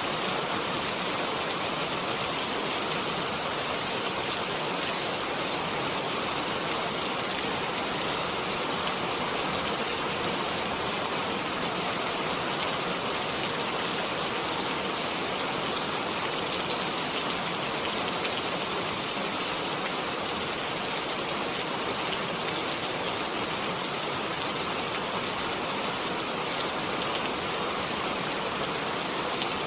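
Steady rain falling, an even hiss with fine drop patter, at a constant level throughout.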